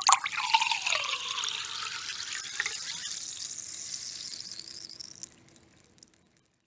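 Sparkling water being poured, starting abruptly with a falling splash, then fizzing steadily. The fizz fades away over the last second or two.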